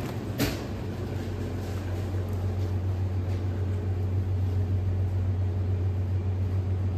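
Steady low hum of a supermarket display freezer's refrigeration, growing a little louder after about two seconds, with a single knock just after the start.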